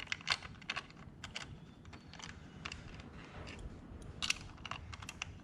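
Light, irregular metallic clicks and taps of bolts and air-cleaner parts being handled, as the mounting bolts are started by hand.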